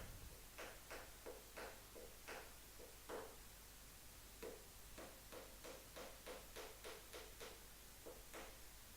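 Faint, quick taps, about three a second: a wooden dowel being hammered into a glued, drilled-out hinge screw hole to fill its stripped threads.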